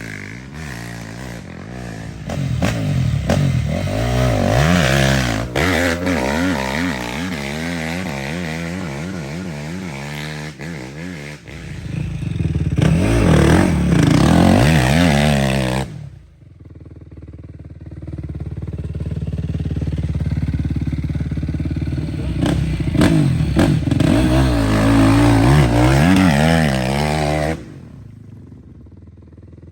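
Dirt bike engine revving hard under load in repeated surges, its pitch rising and falling. It drops off sharply about sixteen seconds in, picks up again, and cuts back near the end.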